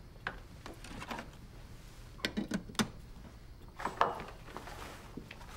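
A few soft wooden knocks and clicks in a small room, bunched together a little after two seconds, with a sharper knock about four seconds in.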